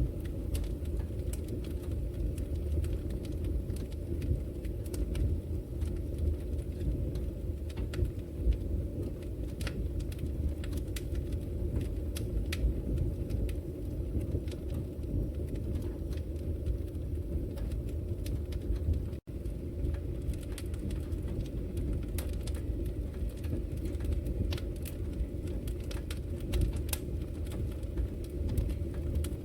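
Wood fire burning in a fireplace: a steady low roar of flames with frequent sharp crackles and pops. The sound drops out for an instant about two-thirds of the way through.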